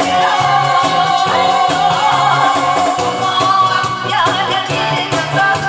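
A woman singing a Korean trot song into a microphone over a backing track with a steady beat and pulsing bass.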